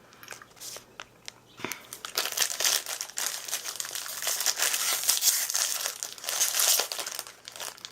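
Packaging of an oat cookie being handled and opened: crinkling and crackling, a few scattered crackles at first, then dense and continuous from about two seconds in until near the end.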